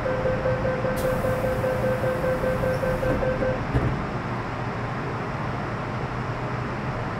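Metro Cammell M-Train door-closing warning tone, one steady high note for about three and a half seconds, then a knock as the doors shut, over the steady low rumble inside the electric multiple unit's car.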